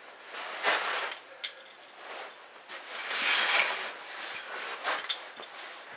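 Climbing shoes and hands scuffing and scraping on rough rock as a boulderer moves across an overhang, with a few short sharp taps.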